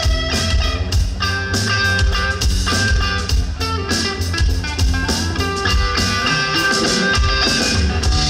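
Live band playing an instrumental passage: a guitar melody over bass and drum kit.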